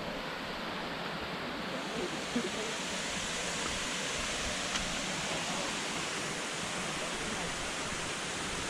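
A waterfall's falling water: a steady rushing hiss that grows a little brighter about two seconds in.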